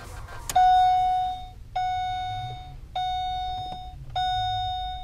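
Holden VE Commodore's in-cabin warning chime sounding repeatedly with the ignition on: a bell-like tone that fades away over about a second, four times at about 1.2 s intervals, after a single click about half a second in.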